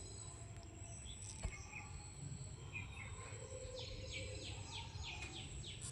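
Faint outdoor ambience of birds calling, with a run of quick down-slurred chirps, about three a second, starting near the middle, over a steady low background hum and a thin high insect-like whine.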